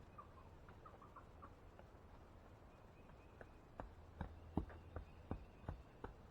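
Faint chicken clucks, then a steady run of dull knocks about two to three a second.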